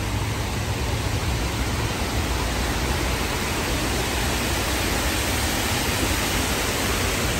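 A steady rushing noise with a low rumble underneath.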